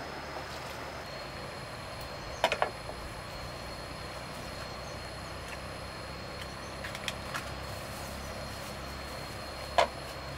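Steady outdoor background noise with a faint thin high whine, broken by sharp knocks: a quick cluster of three about two and a half seconds in, a few faint ones later, and the loudest single knock near the end.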